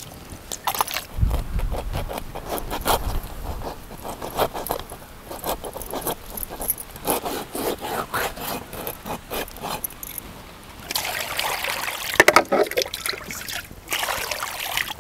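A knife scraping and cutting a pomfret fish with a run of short, quick scrapes. Around two-thirds of the way in, these give way to water poured from a mug over cut fish pieces in a steel bowl to wash them.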